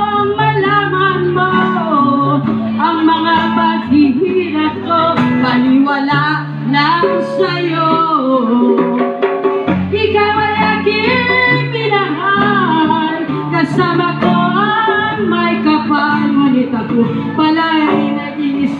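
Live band music: female voices singing into microphones over acoustic guitar, with low notes held and changing every second or so underneath.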